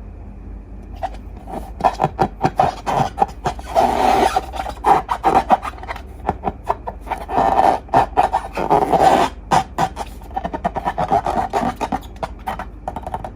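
Hands squishing and working slime: a dense run of small wet clicks and crackles. It swells into louder rubbing, squelching passages about four seconds in and again around eight seconds.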